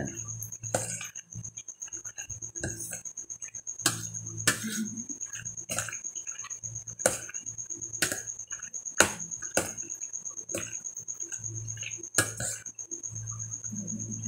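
A spoon clinking and knocking against the side of a stainless steel pot at irregular intervals while macaroni salad is mixed in it.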